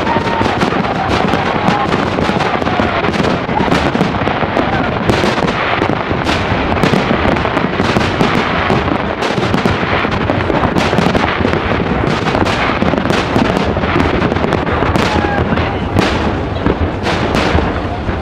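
Fireworks display: aerial shells bursting and crackling in rapid, overlapping succession, with no pause.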